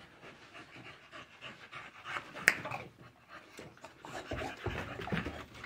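American bully dog panting, with one sharp finger snap about two and a half seconds in.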